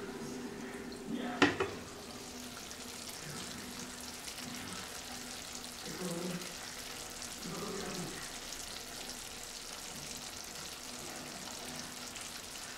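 Glass pan lid clinking once as it is lifted off, about a second and a half in, then beef liver with peppers and onions sizzling steadily in the uncovered frying pan.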